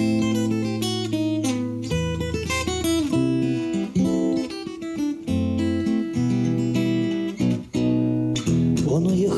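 Steel-string acoustic guitar played fingerstyle in an instrumental passage: single picked notes over ringing bass notes.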